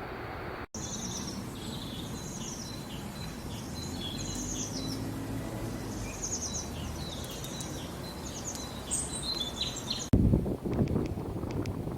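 Small songbirds chirping and twittering in quick overlapping phrases over a low steady rumble. About ten seconds in the birds stop and wind buffets the microphone, with light ticking.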